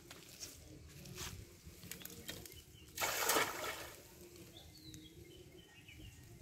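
A cast net lands on a pond with a short, sharp splash about three seconds in, as its weighted rim and mesh hit the water. A few soft rustles of the net being handled come before it.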